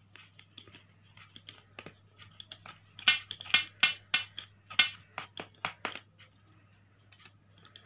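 Wheel pizza cutter rolling and scraping through a baked pizza's crust and against the baking tray: faint scrapes at first, then a run of loud, sharp strokes from about three seconds in that stop near six seconds.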